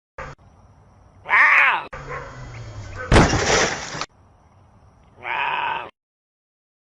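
A short pitched cry, then a loud crash like something breaking about three seconds in, then another short pitched cry near the end.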